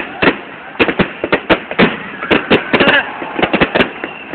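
Fireworks going off in a rapid, irregular series of sharp bangs, several a second.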